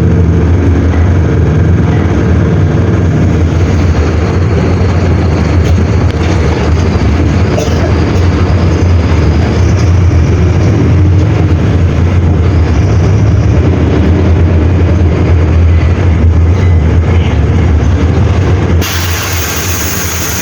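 Mercedes-Benz OM-924 LA four-cylinder inline diesel of an OF-1721L bus running with a steady low drone. About a second before the end the sound changes abruptly, becoming a little quieter with a high hiss added.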